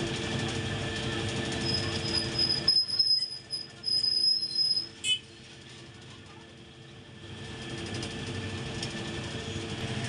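Metal-forming press in a die workshop: a steady machine hum, then a high metallic squeal with a few loud surges for about three seconds, ending in a sharp click. The hum drops away and builds back up near the end.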